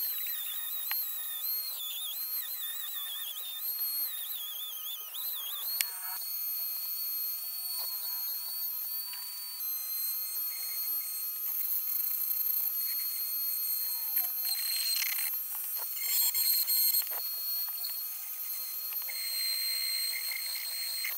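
Dremel rotary tool running at high speed with a high-pitched whine. It is fitted first with a brass wire brush and then a pointed grinding bit, working the metal casing of an old car horn. The pitch wavers for the first several seconds, then holds steady, with short spells of scratchy grinding where the bit bites the metal.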